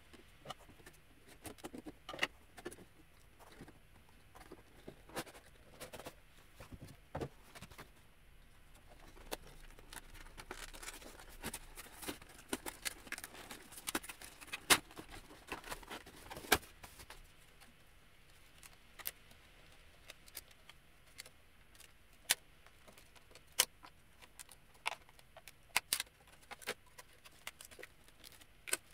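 Doll packaging being opened by hand: cardboard box and plastic inserts crinkling, rustling and clicking in scattered bursts, with a couple of louder sharp snaps about halfway through.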